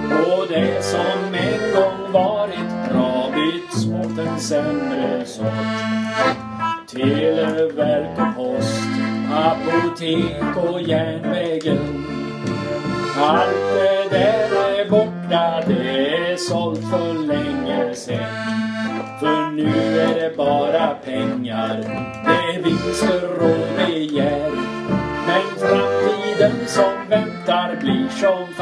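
Diatonic button accordion (melodeon) and electric guitar playing a folk-style song together, with a man singing over them in places.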